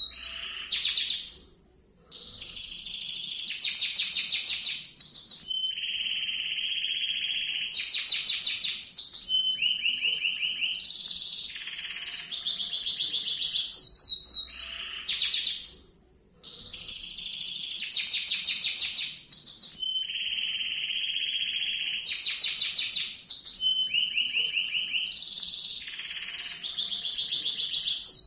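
Domestic canary singing a long rolling song of rapid trills and held whistled notes, with a brief break about a second and a half in and another just past halfway.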